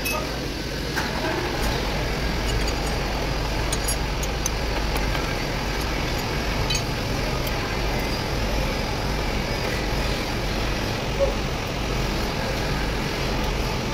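Steady mechanical background noise with a deep low rumble, like a vehicle engine running nearby. A few faint metallic clicks come through it from a ring spanner on the rocker-arm adjusting screws of a Volvo D13 valve train.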